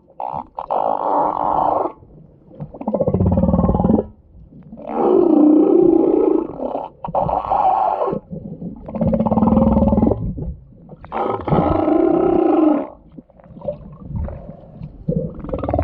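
Humpback whale calling in a series of long calls, one every two to three seconds. Some calls are mid-pitched and others deeper with a low rumble, and the alternation sounds like crying or snoring.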